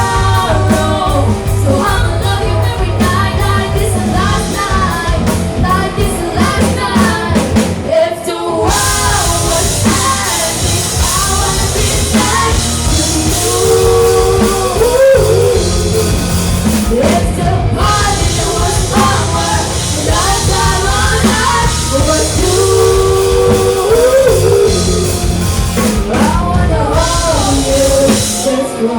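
Live rock band playing, with a singer's voice over drums and guitar.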